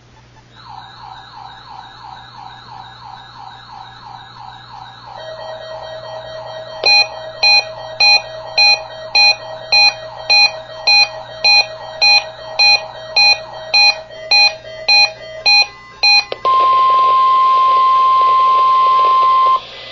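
Weather alert radios sounding the weekly NOAA Weather Radio test alarm. First comes a fast, repeating warbling alert tone. Then loud electronic beeping, nearly two beeps a second, for about nine seconds. It ends with the steady 1050 Hz NOAA warning alarm tone, held for about three seconds.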